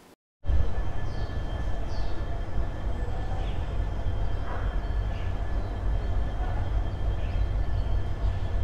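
Steady low rumble of a train standing at the platform with its machinery running, with a faint steady whine over it; it starts abruptly about half a second in.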